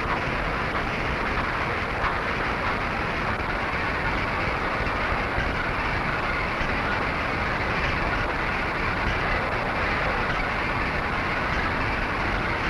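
Steady, even clattering rumble of belt-and-gear factory machinery running.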